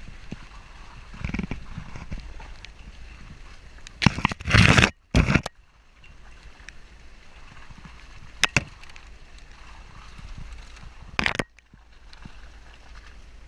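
Volkswagen Amarok pickup crawling over a rough forest dirt trail: a steady rumble of engine and tyres with crackling from the track surface. Loud harsh rushing bursts cut in about four seconds in, briefly near the middle, and again near the end.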